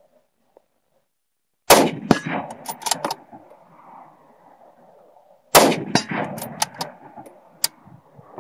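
Two rifle shots from a scoped rifle fired off a bipod, about four seconds apart, each followed by a couple of seconds of rolling echo with sharper cracks in it.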